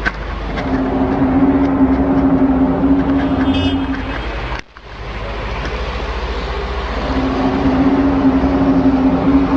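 A low, steady droning hum, like a distant horn, held over a deep rumble. It stops abruptly about four and a half seconds in, then, after a short break, the same kind of drone comes back near the end. This is one of the unexplained sky sounds reported worldwide around 2011–2012.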